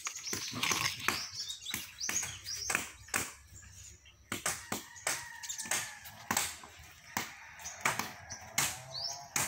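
Sharp knocks at uneven intervals, about two a second, with small birds chirping over them.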